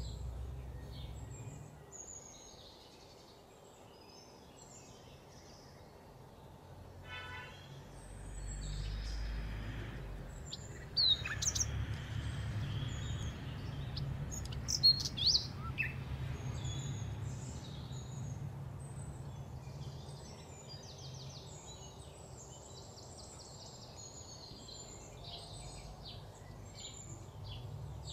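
Small birds chirping over a steady low background hum, with a few sharp knife taps on a wooden cutting board near the middle.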